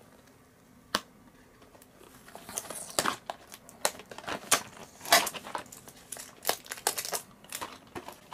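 Packaging being torn and crinkled open by hand: a single click about a second in, then from about two seconds on a run of irregular crackles and rustles.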